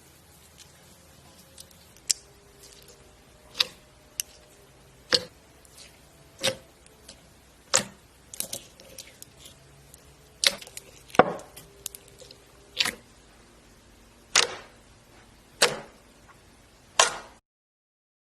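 Slime being pressed and squeezed by hand, giving a series of sharp pops and clicks about once every second or so.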